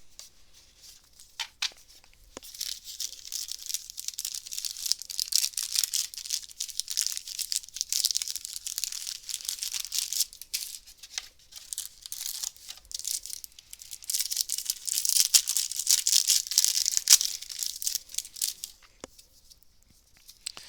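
A card booster pack wrapper being torn open and crinkled by hand, a dense crackling rustle with two long loud stretches and a short lull between them.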